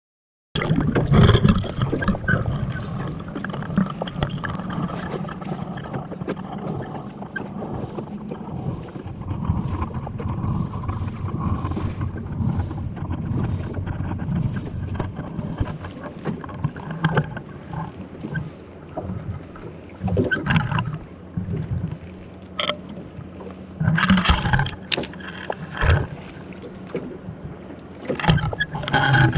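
Water around a small rowboat at sea, a steady low rumble and wash, with a few sharp knocks in the last several seconds.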